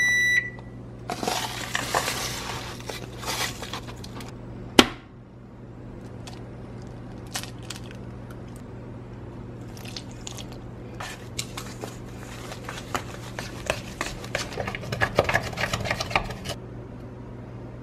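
Dry corn muffin mix poured into a stainless steel mixing bowl, then one sharp knock about five seconds in. Later the batter is stirred by hand, a spoon scraping and clinking against the steel bowl for several seconds.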